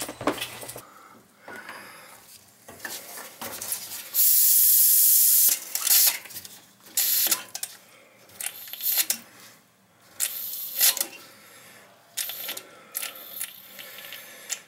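Trapped air hissing out of a hot-water heating convector's bleed valve opened with a screwdriver: one steady hiss of over a second about four seconds in, then several shorter bursts of hissing and spitting. The system is being bled of air after a refill.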